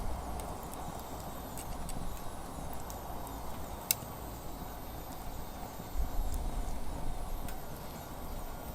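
Firewood burning in a fire pit, crackling with scattered sharp pops, the loudest pop about four seconds in.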